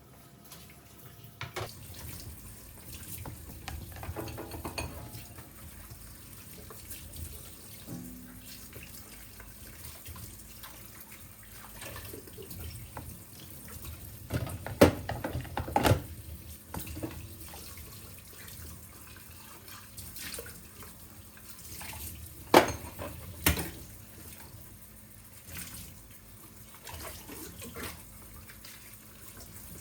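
Tap water running into a sink, with dishes or utensils knocking sharply against each other a few times, the loudest knocks about halfway through and again a little later.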